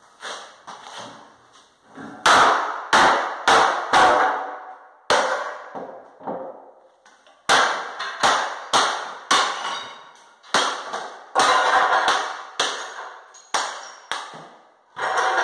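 Claw hammer smashing a marble-look bathroom vanity countertop with a moulded-in sink: a long run of sharp blows, about two a second, each with the slab cracking and breaking. There is a short pause about halfway through before the blows resume.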